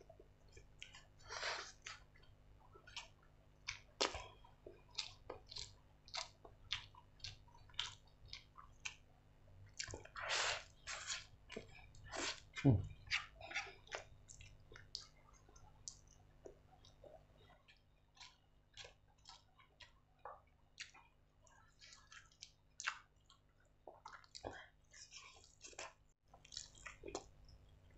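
A person eating spicy instant ramen noodles: steady wet chewing and lip smacks, with a few longer slurps of noodles, one about a second in and another near the middle.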